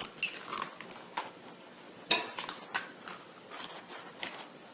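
Eggs being cracked against a mixing bowl: a series of sharp taps and light clinks of shell on the bowl, the loudest about two seconds in.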